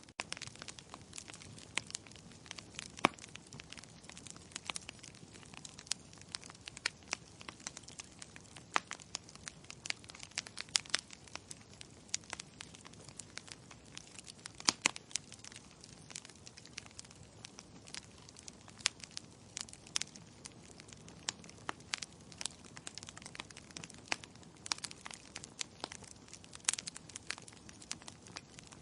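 Wood logs burning in a fireplace, crackling with frequent irregular sharp pops and snaps over a soft steady hiss of flames.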